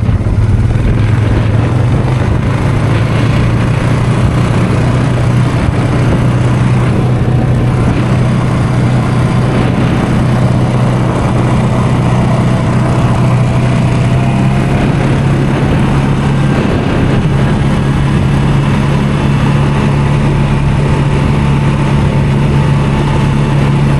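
ATV engine running steadily, its pitch stepping up slightly about two-thirds of the way through.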